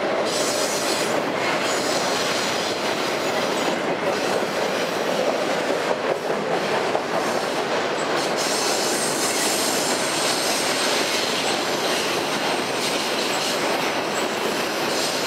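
A long freight train of autorack cars rolling past on a curve: a steady rumble and rattle of wheels on rail, with brief faint high wheel squeals now and then.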